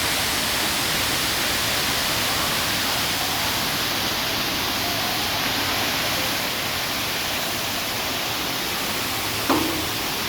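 A waterfall and the water pouring down below it, a steady, even rush. A brief sharp sound stands out near the end.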